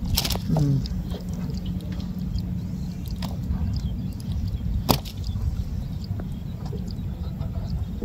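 Nylon gill net being hauled by hand over the side of a boat: faint rustling and dripping over a steady low rumble, with one sharp knock about five seconds in.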